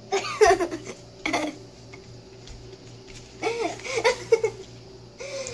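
Giggling and laughter in several short bursts, over a faint steady hum.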